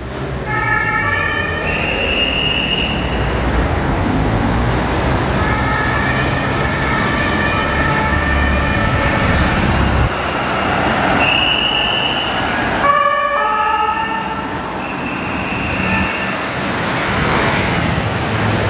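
French police two-tone sirens sounding from a passing escort convoy of police cars and motorcycles, over their engine and traffic noise. The siren tones alternate between two pitches and overlap from more than one vehicle.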